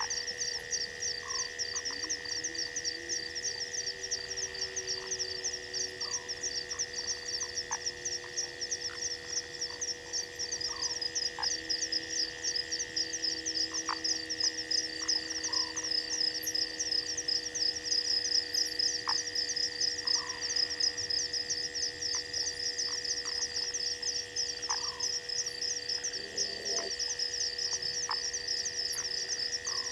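Night chorus of frogs and insects: a dense, fast, high-pitched trilling over a steady high whine, with short falling chirps every couple of seconds.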